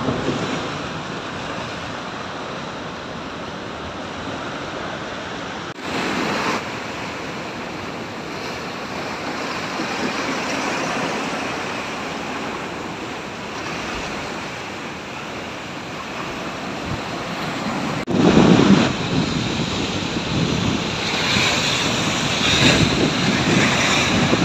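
Heavy surf breaking over rocks: a continuous churning wash of foam and water, with a big wave crashing loudest about three-quarters of the way through.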